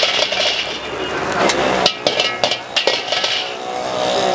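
Metal spatula clanking and scraping against an empty wok, a series of sharp, irregular metal knocks.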